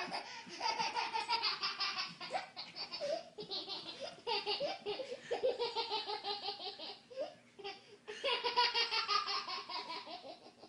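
Baby laughing hard in long runs of quick, rhythmic bursts, several runs sliding down in pitch.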